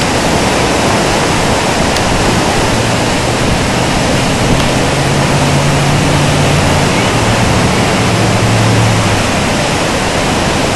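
Swollen floodwater rushing through rapids, a loud, steady wash of whitewater noise. A low hum sits underneath it for several seconds in the middle.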